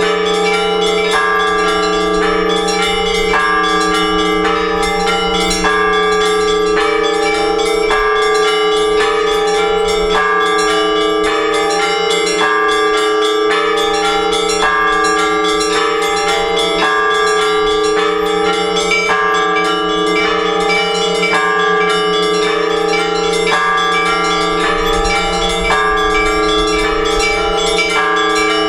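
Several Orthodox church bells rung together, the call to the all-night vigil: the deep bells hum on underneath while the smaller bells strike a quick pattern that repeats about every two seconds.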